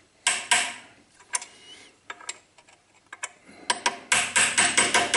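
Screwdriver tip clicking and scraping against the lathe headstock's spindle bearing nut and gear, metal on metal, to adjust the spindle bearings: a few separate knocks, then a quick run of ringing clicks near the end.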